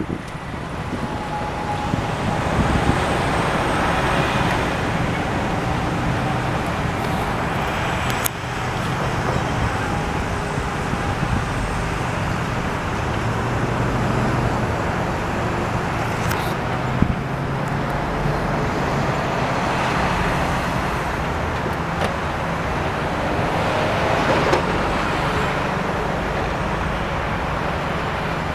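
Tow trucks, a flatbed rollback and a wrecker, driving past one after another with cars following, their engines and tyres making steady traffic noise that swells as each vehicle goes by.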